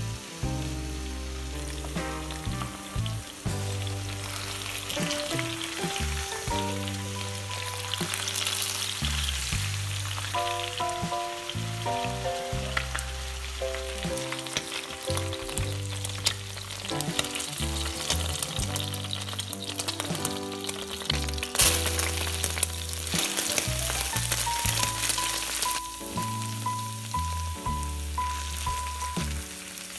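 Chicken breasts frying in vegetable oil in a nonstick pan, a steady sizzle, then chopped onion and garlic sautéing in the same oil, with a sudden louder surge of sizzling about two-thirds of the way through. Background music plays throughout.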